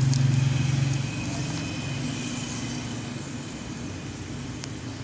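A low, steady engine hum, loudest in the first second and then easing off slightly, with a faint click near the end.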